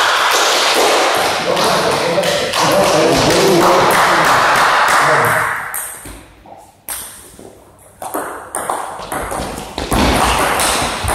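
Table tennis ball clicking: a few single knocks in a quieter stretch, then a quick run of bat-and-table hits as a rally gets going near the end. Loud hall noise with voices fills the first half.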